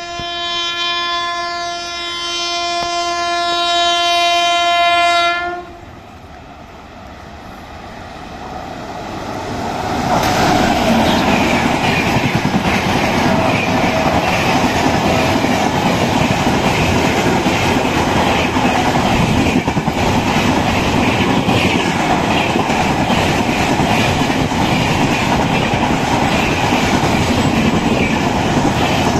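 WAP-7 electric locomotive horn sounding one long, steady blast for about five seconds, then stopping. From about eight seconds in, the high-speed express rushes past, growing loud by about ten seconds: a steady roar of coaches and wheels running on the rails.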